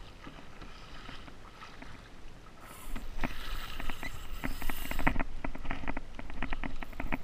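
Sea water splashing and slapping against a plastic kayak hull as it moves through chop. About three seconds in the splashing gets louder, with a rapid run of sharp clicks and slaps that continues for several seconds.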